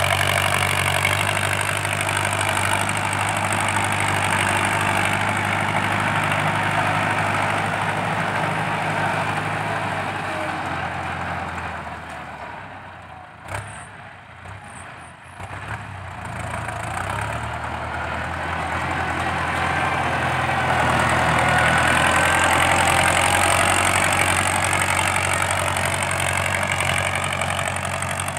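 Ford 6640 tractor's diesel engine working under load with its loud exhaust while pushing soil with a front blade. The engine fades to its quietest about halfway through, then climbs in pitch and grows louder again past the middle.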